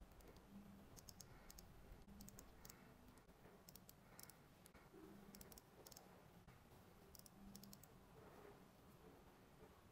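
Faint clicks and taps, two or three at a time every second or two, from fingertips working a smartwatch's touchscreen and side crown.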